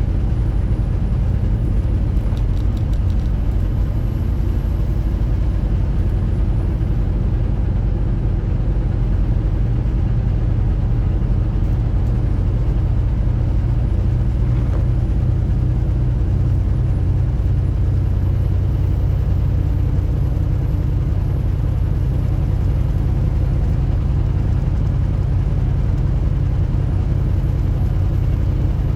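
Semi-truck engine and road noise heard inside the cab while driving: a steady low drone that holds even throughout.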